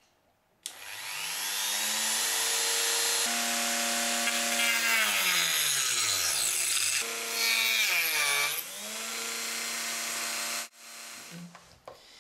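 A Dremel rotary tool fitted with a small toothed circular saw blade spins up with a high whine and cuts slots into a thin wood panel. Its pitch falls away around five seconds in, comes back up, and sags briefly as the blade bites into the wood, then it stops abruptly near the end.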